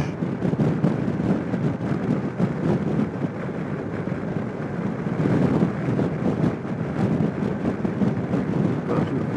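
Suzuki Burgman 650 maxi-scooter under way: a steady rumble of engine and road noise, with wind buffeting the microphone.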